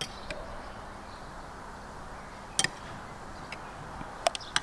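Sharp clinks of cutlery on plates: one about two and a half seconds in and two close together near the end, over a steady background hiss.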